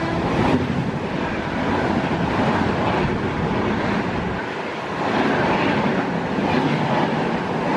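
Rajdhani Express's LHB passenger coaches rushing past at speed: a loud, steady roar of wheels on rail and rushing air. The last note of the electric locomotive's horn stops right at the start.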